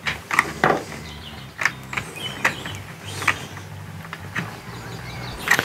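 Small screwdriver tightening the screw terminals that hold the 5-volt power wires on an F8 power distribution board: a series of short, irregular clicks and scrapes as the tool turns in the screw heads.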